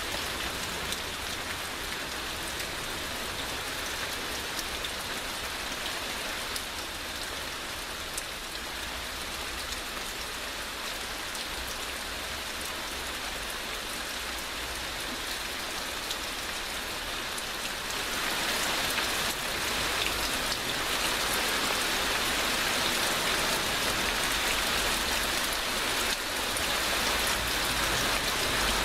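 Heavy rain falling steadily, a dense hiss of drops with scattered individual drop ticks; it grows heavier and louder about two-thirds of the way through.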